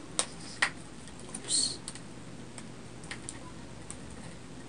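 Plastic clicks and taps from a ring light and its phone holder being handled: two sharp clicks in the first second, then a few fainter ticks. There is a brief high hiss about a second and a half in.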